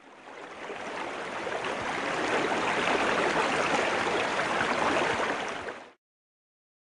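Running stream water: a steady rush with a fine bubbling texture that fades in, holds, and fades out to silence about six seconds in.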